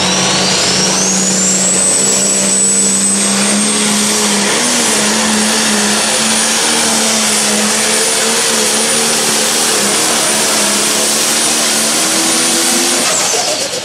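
John Deere Pro Stock pulling tractor's turbocharged diesel running flat out while pulling the sled, with a high turbo whine that climbs over the first couple of seconds and then holds. Near the end the engine drops off and the whine falls away as the pull finishes.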